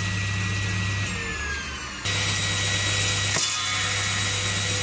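Table-mounted circular saw blade spinning at speed, its motor giving a steady hum and a high whine. About a second in, the whine falls in pitch and the hum weakens, and then it runs steadily again. There is a single sharp knock about three and a half seconds in.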